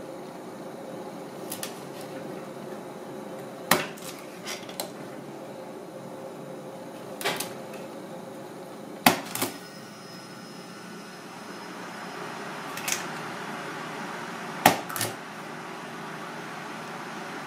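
Kitchen knife chopping through a sea snake's body on a plastic cutting board: several sharp knocks of the blade meeting the board, some in quick pairs, over a steady low hum.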